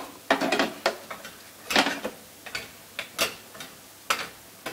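Irregular clinks and knocks of kitchen utensils, about one every half second to second, with one louder knock a little before the midpoint. A spoon is clinking and scraping in a small steel saucepan of chocolate and pudding, and a food processor's steel mixing jug is being set back on its base.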